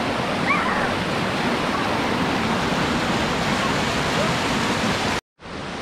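Mountain stream rushing and splashing as it cascades over rocks at the top of a waterfall, a steady loud rush that cuts off abruptly near the end.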